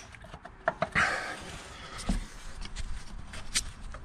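Scattered light clicks and knocks with a short rustle about a second in: hand handling of a replacement engine mount being turned around in its bracket in the engine bay.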